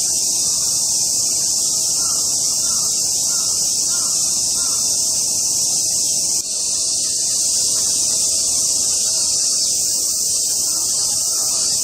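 A loud, steady chorus of cicadas, with a bird calling a quick series of about six short notes a couple of seconds in.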